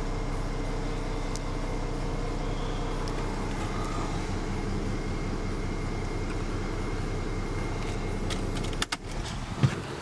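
Mercedes E350's engine idling steadily, heard from inside the cabin. It stops abruptly about nine seconds in, followed by a few clicks and a short thump from the car's door.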